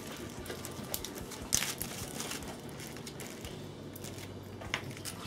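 Plastic zip-top bags crinkling and rustling as they are handled, in a few short bursts over a faint steady room hum.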